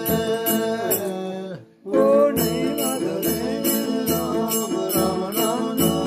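Dogri folk music: a frame drum beaten in a steady beat, a plucked string instrument and voices singing together. The sound drops out briefly about a second and a half in, then picks up again.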